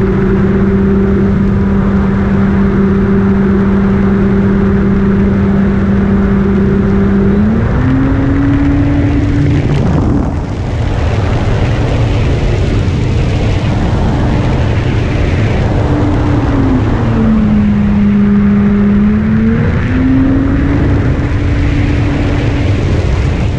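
Electric motor and propeller of a Carbon-Z Cessna 150 RC floatplane heard from on board: a steady loud drone over a rush of airflow noise. The pitch steps up about a third of the way in as the throttle is raised, sags lower for a couple of seconds past the middle, then rises again.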